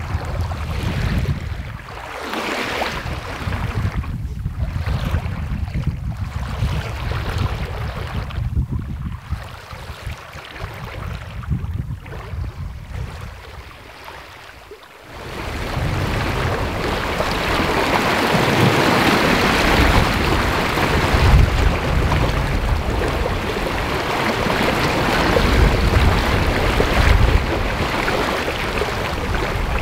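Wind buffeting the microphone in gusts aboard a sailing yacht moving fast through choppy sea. About halfway through this gives way to a steady rushing hiss of wake water streaming past the hull.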